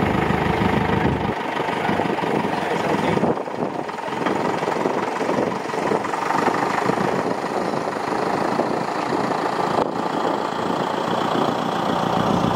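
Aircraft tow tractor's engine running at idle while hitched to a parked jet.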